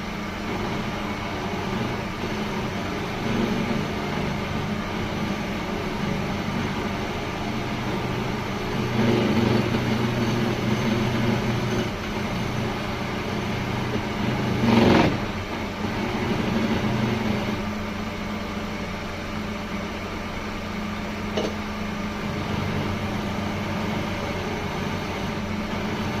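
Woodworking machine's electric motor running with a steady hum, with a louder stretch about nine seconds in and a brief, sharp louder burst about fifteen seconds in.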